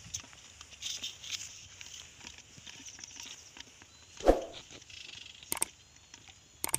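Quiet pond-side ambience with small handling ticks as a fishing rod is baited and swung out. A short, sharp sound stands out about four seconds in. Near the end come sharp clicks from a subscribe-button animation.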